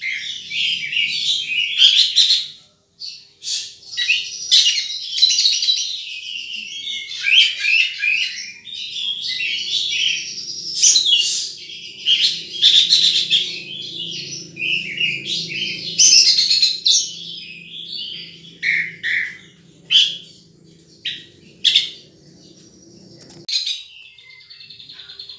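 Sunbird calling: rapid, high-pitched chirps and twittering in quick runs, with a brief pause about three seconds in.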